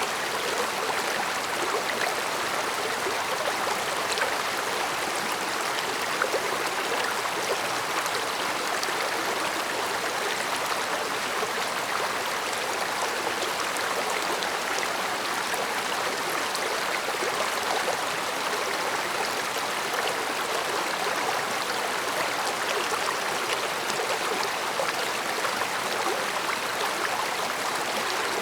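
Mountain stream flowing and babbling steadily over rocks, an even rushing murmur with small splashes.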